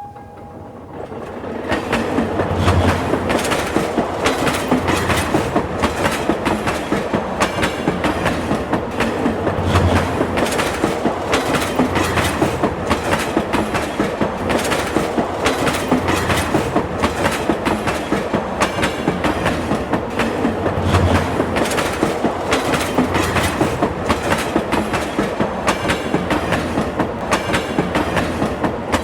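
Train running along the tracks: a steady rumble with a fast, regular clickety-clack of wheels over rail joints, building up over the first couple of seconds.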